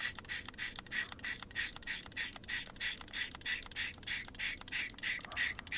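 A Warheads Super Sour Spray candy bottle being pumped rapidly into a shot glass: a steady run of short hissing sprays, about five a second.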